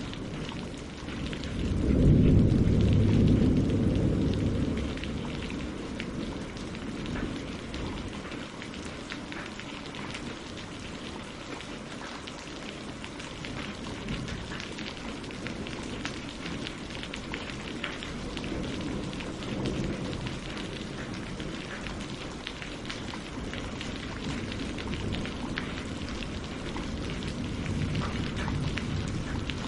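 Steady rain falling on leaves and lake water, a dense patter of drops. About two seconds in, a deep low rumble swells up, the loudest sound, and dies away over a few seconds; fainter low swells come later.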